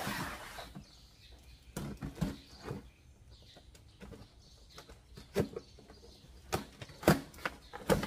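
A cardboard parcel box being handled and turned over: a short scraping rustle at the start, then scattered knocks and bumps, the sharpest about seven seconds in.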